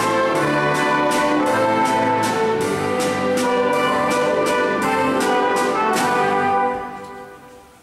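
A small orchestra of strings and brass playing, the brass prominent, over evenly spaced accents. About a second before the end the music breaks off and the sound dies away in the hall.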